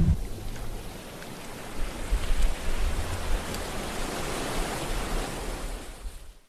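Sea waves breaking and washing on a shore, a steady rushing noise that swells louder about two seconds in and fades out at the end; a stock sound-effect recording.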